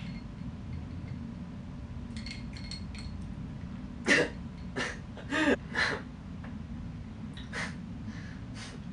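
A man coughing: four loud short coughs about half a second apart, then two fainter ones.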